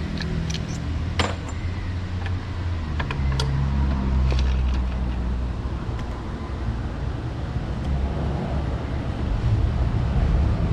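A few sharp metallic clinks, mostly near the start, over a steady low rumble.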